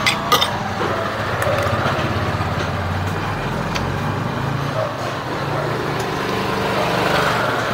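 A motor vehicle engine running steadily close by, a low even hum, with a few sharp cutlery clinks right at the start.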